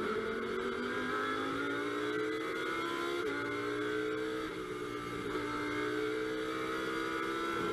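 Lamborghini Huracán GT3's V10 engine at full throttle, heard from inside the cockpit, its note climbing steadily with brief dips about three, four and a half and five seconds in.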